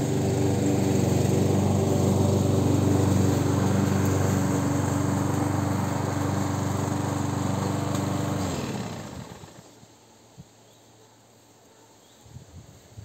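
Petrol lawn mower (Amber line-B class 4in1) running steadily, then shut off about two-thirds of the way in, its engine winding down and stopping within about a second.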